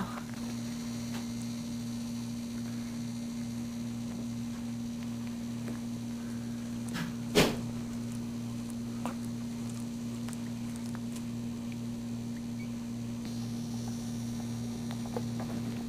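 A steady low electrical hum, with a single sharp knock about seven seconds in and a few faint clicks after it.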